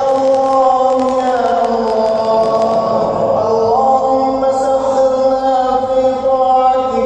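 A man chanting an Arabic du'a in a melodic recitation style, holding long drawn-out notes that bend slowly up and down in pitch.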